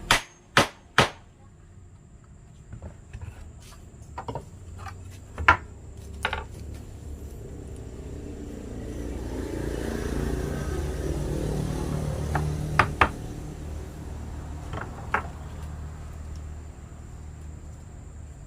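Sharp knocks, three in quick succession at the start and a few more scattered later, over a low rumble that swells and fades in the middle.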